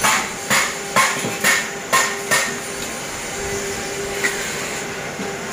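Six sharp metal knocks, about two a second, on a welded steel motorcycle centre stand and its tube fittings, then one fainter knock near the end, over a faint steady hum.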